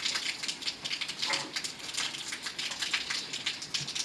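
Rain pattering steadily, a dense irregular crackle of many small drops.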